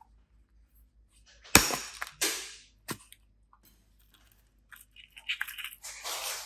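Close-up crunching and cracking handling sounds. There is a sharp crack about one and a half seconds in, then a softer crunch and a single click, and from about five seconds in a run of crackling and crunching.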